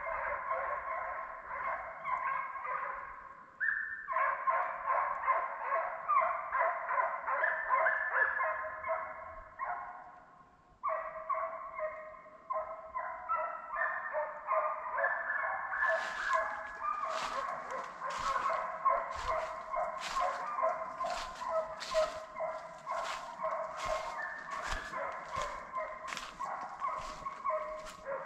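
A pack of deer hounds baying and bawling on a running chase, many voices overlapping, fading briefly twice before swelling again. From about halfway there is also a regular crunching in dry leaves, about two a second.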